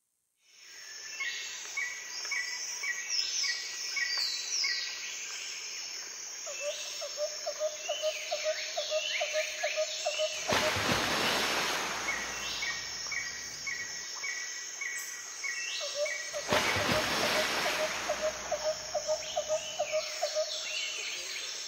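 A recorded chorus of birds and insects: repeated short chirps, fast trills and quick falling calls over a steady high insect drone, with two swells of rushing noise about ten and sixteen seconds in.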